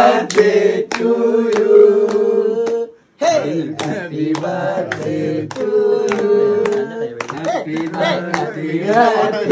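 A group of voices singing together, with hand claps in a steady beat and a short pause about three seconds in.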